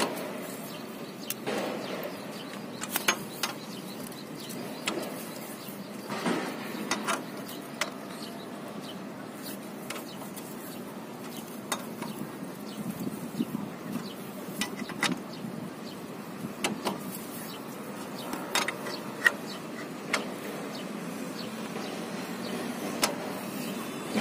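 Scattered light metallic clicks and taps as a motorbike's oil drain bolt is threaded in by hand and a tube socket wrench is handled, over steady background noise.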